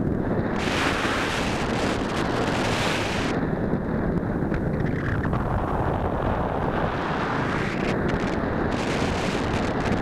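Wind rushing over the microphone of a keychain camera mounted on a soaring RC glider's wing: a steady, heavy wind noise. A brighter hiss comes in for a couple of seconds near the start and again briefly near the end.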